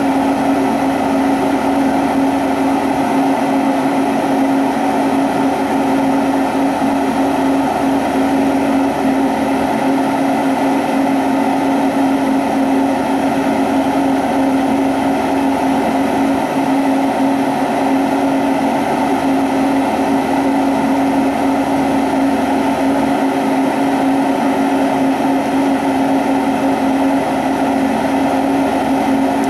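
Lampworking torch flame burning steadily against glass on a ring mandrel, a constant rushing noise with a steady low hum under it.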